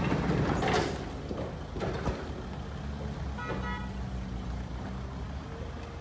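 Heavy construction machinery engine running steadily, with rough noisy bursts in the first second and a short high horn toot about three and a half seconds in.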